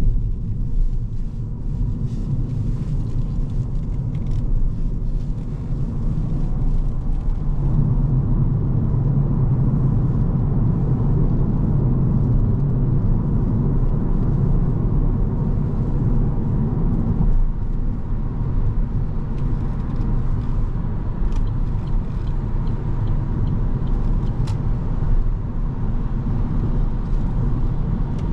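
Inside the cabin of a 2023 Opel Corsa-e electric hatchback accelerating onto a motorway: steady tyre and road rumble with wind noise, and no engine note. The rumble grows heavier from about 8 s in as the speed climbs toward 97 km/h, then eases slightly as it settles around 90 km/h.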